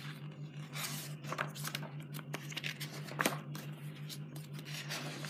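Pages of a large picture book being turned and handled: several short papery swishes and rustles, with a steady low hum underneath.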